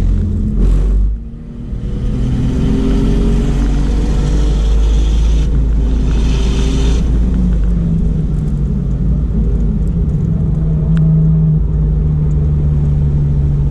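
Porsche 996 GT2's twin-turbo flat-six heard from the cabin at full throttle, its pitch rising as the car accelerates down a straight, with a short dip in level about a second in. In the second half the driver lifts off to brake and the engine note settles lower and steadier.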